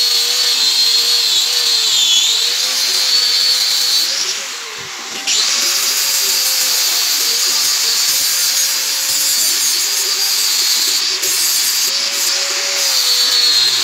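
Angle grinder grinding the rusty steel of an old axe head: a steady high motor whine over a gritty hiss. The pitch sags briefly about two seconds in, and the grinding eases off for about a second around four seconds in before picking up again.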